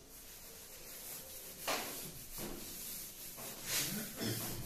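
Cloth duster wiping chalk off a blackboard: a series of rubbing swishes, the strongest about a second and a half in and again near the end.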